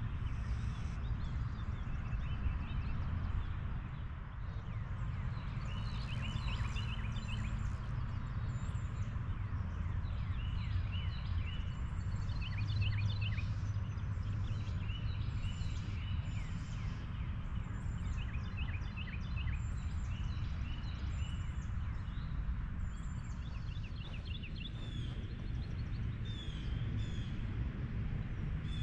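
Birds singing and chirping in short, repeated phrases over a steady low rumble.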